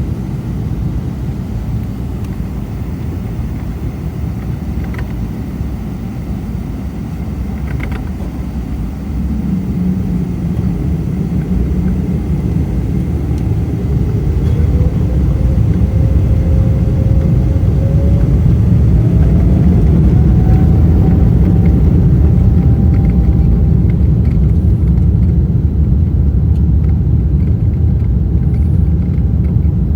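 Cabin rumble of a Boeing 777-300ER, heard from inside. From about ten seconds in, its GE90-115B engines spool up: a whine rises in pitch while the rumble grows louder, then both hold steady at high thrust, as takeoff thrust is set for the takeoff roll.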